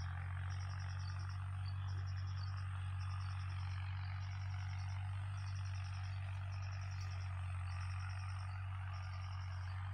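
An insect chirping in short trills of rapid high pulses, about one trill a second, over a steady low hum and a background hiss.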